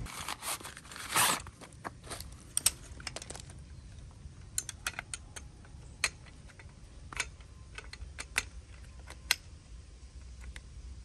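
Folding camp furniture being assembled by hand: irregular light clicks and rattles of pole sections and fittings snapping into place, with a brief fabric rustle about a second in.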